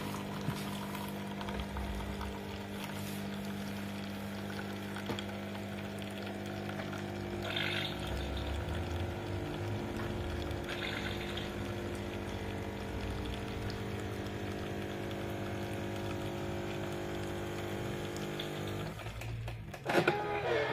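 Automatic coffee machine running its pump with water flowing through: a steady hum that stops about 19 seconds in, followed by a brief louder sound.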